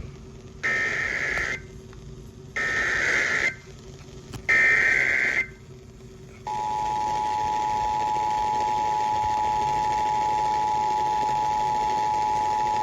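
Emergency Alert System SAME header: three one-second squawks of digital data tones with about a second of hiss between them. Then, about six and a half seconds in, the steady two-tone EAS attention signal (853 and 960 Hz sounded together) begins and holds. The header and tone open a Required Monthly Test alert for Shasta County.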